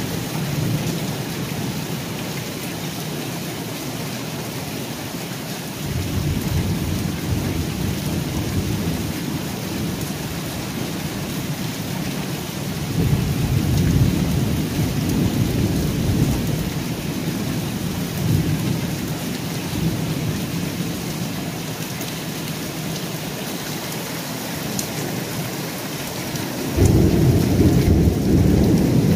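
Steady rain with thunder rumbling several times, the heaviest rumble near the end.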